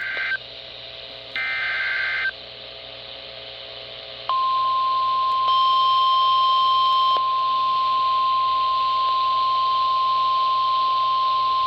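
Weather radio Emergency Alert System signal: two short bursts of warbling digital header tones, then the long, steady single-pitch warning alarm tone starting about four seconds in. The tones mark the start of a new warning broadcast. A brief higher beep sounds over the alarm tone for a second or two.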